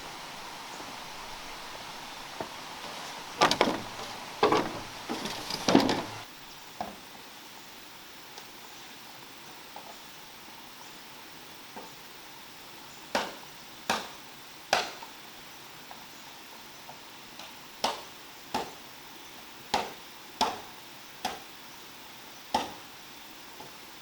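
Chopping strikes on bamboo: a quick flurry of about five blows, then single blows at a slower, uneven pace, each sharp with a short ringing decay.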